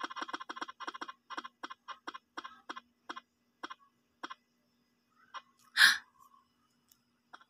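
A spinning name-wheel app ticking through a phone's speaker, each tick marking a name passing the pointer. The ticks start rapid and slow steadily to a stop about five seconds in. A single short, loud noise follows about half a second later.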